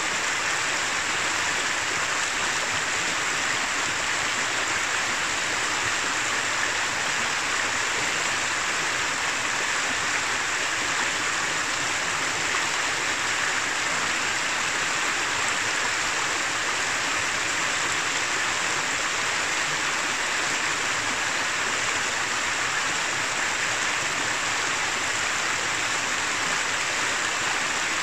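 Shallow mountain river running over stones and gravel: a steady babble and rush of water over rocks.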